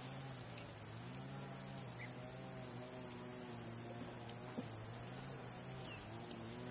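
Steady high-pitched insect chorus over a low hum that wavers slightly in pitch, with a few faint clicks.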